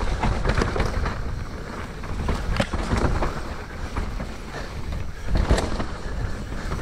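Mountain bike rolling down a dirt trail: a steady low rumble of tyres on the ground, with frequent clicks, rattles and knocks from the bike over rough ground, the sharpest just after the middle.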